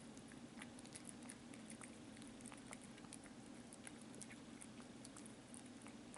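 Kitten chewing small bits of meat and licking a plate: faint, quick, irregular wet clicks of mouth and tongue over a steady low hum.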